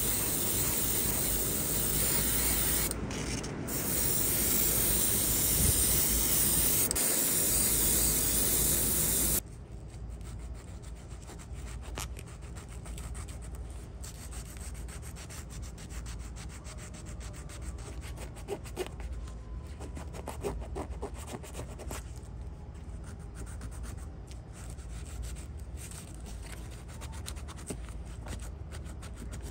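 Spray paint hissing steadily onto a model truck body, with two short breaks about three seconds in, then cutting off at about nine seconds. After that comes quieter, scratchy rubbing of fine sandpaper worked by hand over a small diecast metal part.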